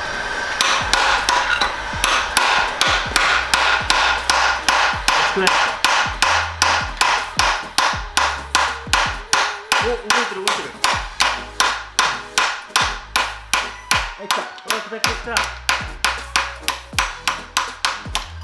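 Rapid, regular hammer blows, about three a second, on a tool set against the seized crankshaft timing pulley of a Toyota 4A-GEU engine as it is driven off, with a heat gun's blowing hiss under the first few seconds.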